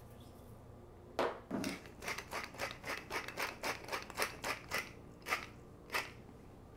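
Seasoning being shaken from a shaker over a bowl of chopped salsa vegetables: a run of quick, rasping rattles, about four a second, starting about a second in and stopping near the end.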